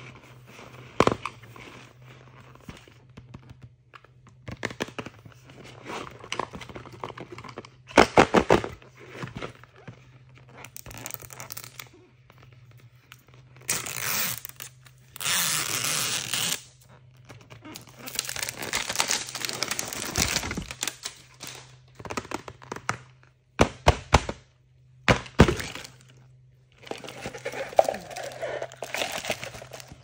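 Hands opening toy packaging: sharp taps and knocks of plastic, with several stretches of tearing and crinkling wrapping, the longest a few seconds each.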